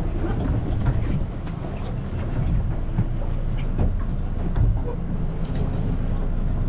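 Steady low rumble aboard a fishing boat trolling under way, with wind buffeting the microphone and a few light knocks.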